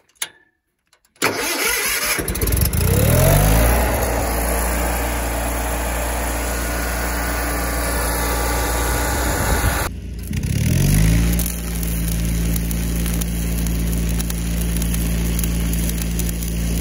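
The engine of a Lincoln Weldanpower AC/DC engine-driven welder/generator being started: it cranks and catches a little over a second in, rises in speed and runs steadily. About ten seconds in the sound drops out briefly and the engine comes up to speed again, then runs steadily.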